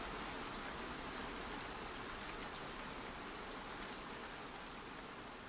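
Steady rain falling, a dense even patter, growing slowly quieter toward the end as it fades out.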